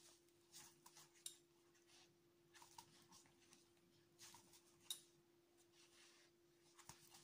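Near silence: a few faint, short clicks of steel surgical instruments as a wound is sutured, over a steady faint hum.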